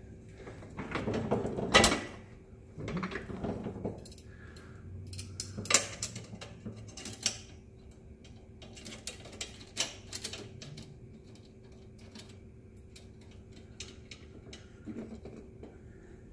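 Irregular metallic clicks and clinks of steel drag springs and screws being handled and fitted onto a tubing anchor catcher housing, with a couple of sharper knocks about two and six seconds in.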